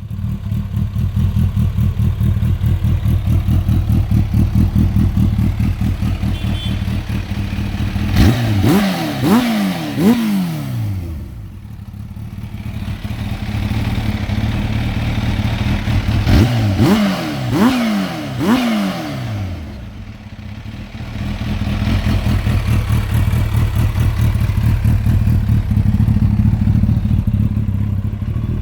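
Kawasaki Ninja H2's supercharged inline-four, breathing through an Akrapovic full-system exhaust, running steadily, then revved in three quick throttle blips, twice, about eight and sixteen seconds in, each blip rising sharply and falling back.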